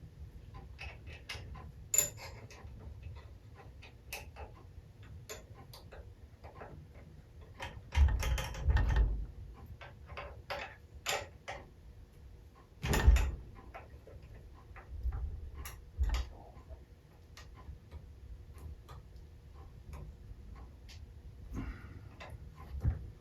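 Hand tools and metal parts clicking, tapping and knocking during adjustment work on an aluminium four-cylinder compressed-air engine: many small irregular clicks, with a few louder knocks about 2, 8, 13 and 16 seconds in.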